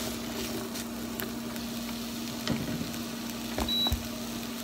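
Sliced zucchini and yellow squash sizzling in hot oil in a skillet, stirred with a spatula that knocks against the pan a few times, loudest about two and a half and three and a half seconds in. A steady low hum runs underneath.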